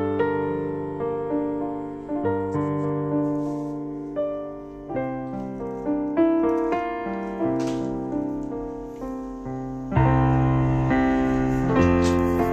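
Background piano music: separate notes ringing out and fading, playing louder from about ten seconds in.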